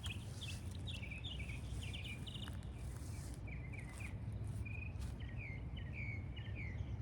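Birds chirping in quick short notes, over a steady low outdoor rumble with a few faint clicks.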